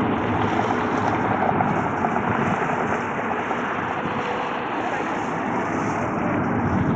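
Steady rushing roar of jet engines from an Airbus A380 taxiing, mixed with wind noise on the microphone.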